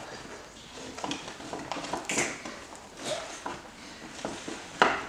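Scattered light rustles and clicks, with a sharp knock near the end.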